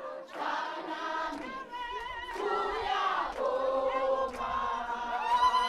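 A choir, a group of voices singing together in held notes.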